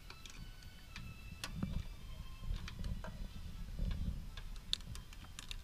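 Scattered light ticks and clicks at irregular intervals over a low rumble.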